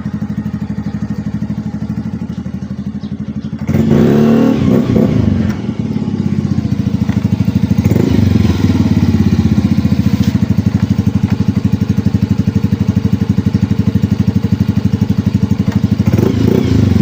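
Yamaha Mio M3 scooter's single-cylinder four-stroke engine running through an aftermarket BSM exhaust in place of the stock pipe, with an even pulsing idle. The throttle is blipped about four seconds in, with the pitch rising and falling back, and blipped lightly again near eight seconds and near the end.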